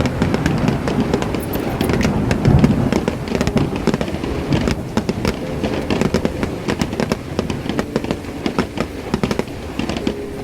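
Fireworks going off: deep rumbling booms in the first few seconds, then a dense run of rapid crackling pops.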